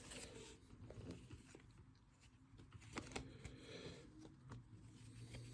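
Near silence with a few faint clicks and light rustles from trading cards being handled and slid apart.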